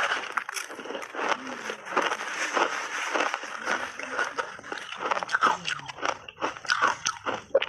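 Close-up crunching of a layered block of frozen ice being bitten and chewed, a dense, irregular run of sharp crunches and crackles.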